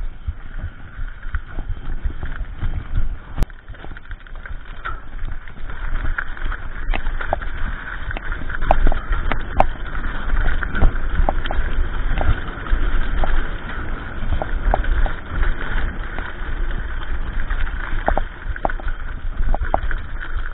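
Mountain bike ridden fast over a dirt trail: constant wind buffeting and tyre rumble, with frequent sharp rattles and knocks from the bike jolting over bumps and roots.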